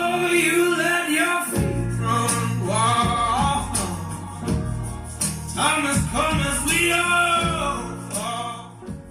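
Song with a male voice singing over guitar and drums, getting quieter near the end.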